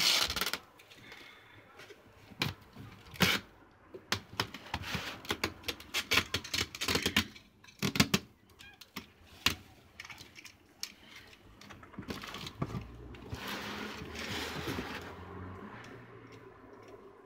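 A cardboard box being handled and sealed with packing tape: many sharp clicks and taps on the cardboard, and a longer rasping stretch of tape pulled off its roll about two-thirds of the way through.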